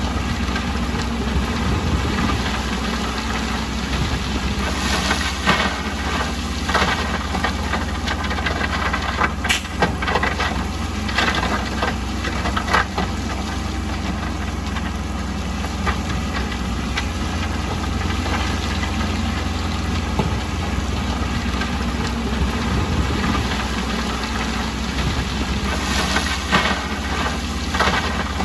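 Diesel engine of heavy earthmoving machinery running steadily, with a number of separate clanks and knocks scattered through it.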